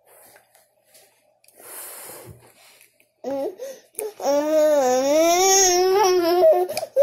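Toddler babbling in a long, drawn-out voice that wavers up and down in pitch, starting about three seconds in after a few soft sounds.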